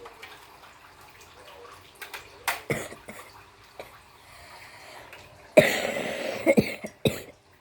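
Unboxing handling noise: a few light knocks and taps, then a loud rustle lasting about a second and a half, starting about five and a half seconds in, like packaging being handled.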